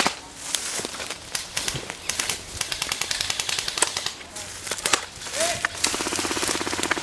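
Airsoft electric rifles firing: scattered sharp cracks and clicks of single shots, then a rapid full-auto burst starting near the end.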